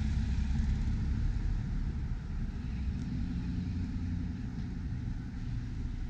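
Cars passing through a street intersection: a steady low traffic rumble, a little louder in the first second or so as a car drives by close.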